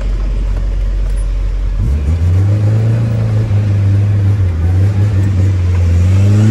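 Tofaş car engine and exhaust heard from inside the cabin while driving: a low drone that steps up in pitch about two seconds in as the car pulls, holds with small wavers, then climbs again near the end.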